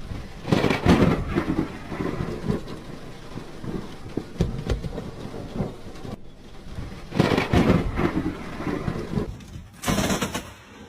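Thunder from nearby lightning strikes over steady rain: a sudden loud crack and rumble about half a second in, and another about seven seconds in, each fading over a few seconds. Near the end a short, brighter burst of noise ends abruptly.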